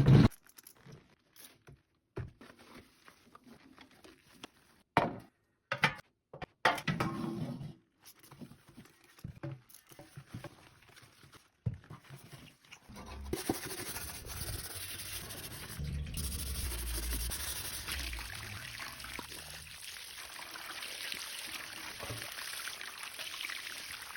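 Cleaning a microwave and baking tray by hand: scattered knocks, clicks and short scrapes, then about halfway through a steady rushing noise, like scrubbing or rinsing, that runs on.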